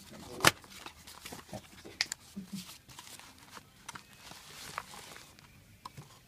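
A box and its packaging being handled and opened: scattered clicks and rustles, with one sharp snap about half a second in.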